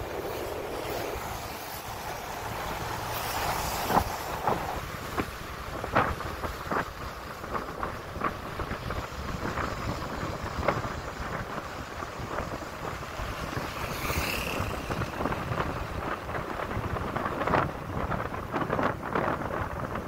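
Wind buffeting the microphone of a camera riding along a road, over steady rolling road noise, with scattered knocks and rattles from bumps in the ride. A brief high squeal comes about two-thirds of the way through.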